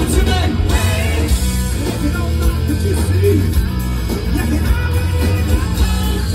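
Live hard-rock band playing: electric guitar, electric bass and drum kit, loud and dense with a heavy low end.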